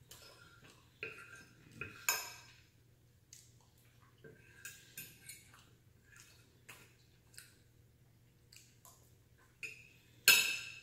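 Metal fork scraping and tapping on a plate, a string of light clinks as the last of the pasta sauce is scooped up. Near the end a utensil is set down with a loud clatter.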